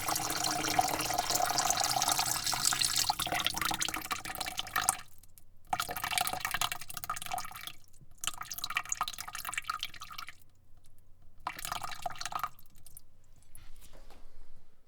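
Water being poured into a bucket: a steady pour for about five seconds, then three shorter pours with brief pauses between them, ending in a faint trickle and drips.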